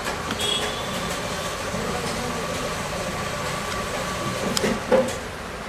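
Plastic clicks and knocks as an Asus laptop's keyboard top case is lifted off its base and handled, the loudest knock about five seconds in, over a steady background hum.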